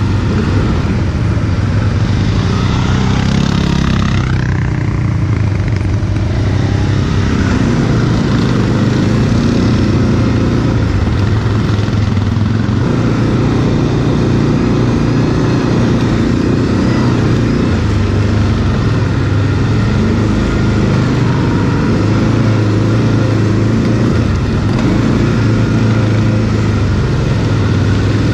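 Quad bike (ATV) engine running under throttle as it is ridden off-road, the revs rising and falling, with one clear climb in revs a few seconds in.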